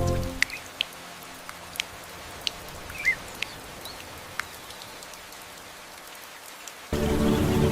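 Light rain falling, a steady hiss with scattered sharp drips, and a short bird chirp about three seconds in. Background music fades out at the start and comes back in loudly near the end.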